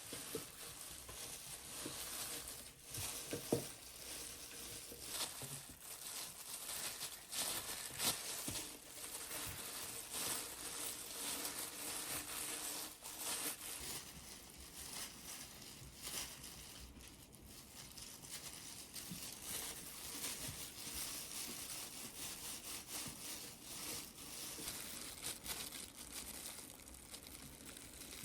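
Continuous rustling and crinkling of handled material such as paper or packaging, with irregular small clicks and scrapes and a couple of louder knocks, about three and eight seconds in.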